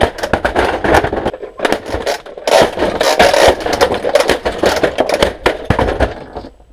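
Cheap plastic toys crashing and clattering: a knockoff camouflage toy tank slamming into a plastic toy car, with many sharp knocks, rattling and scraping as pieces and tank tracks fly off. The sound fades out near the end.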